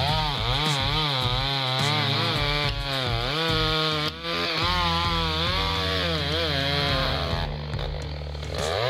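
Chainsaw cutting wood, its engine speed rising and falling as the chain bites into the cut. The engine eases off about eight seconds in, then revs back up near the end.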